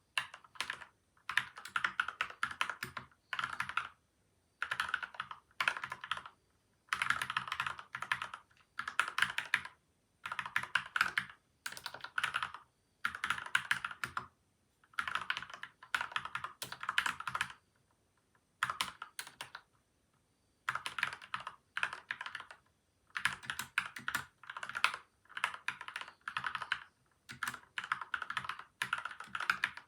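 Typing on a PCL87 mechanical keyboard with lubed linear switches (Gateron Milky White and Outemu Yellow), taped and foam-dampened: quick runs of keystrokes broken by short pauses, with a longer lull about two-thirds of the way through.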